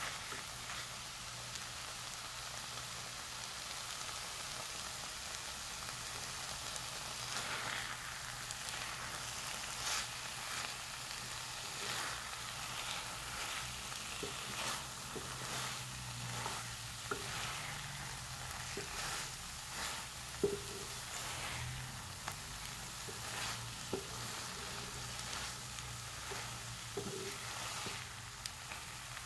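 Scrambled eggs and tomatoes sizzling in a frying pan while a wooden spatula stirs and scrapes through them, with a few sharp clicks of the spatula against the pan.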